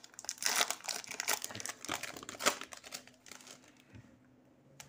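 A plastic-foil trading-card packet crinkling and rustling as it is opened by hand, busy for about the first three seconds, then much quieter.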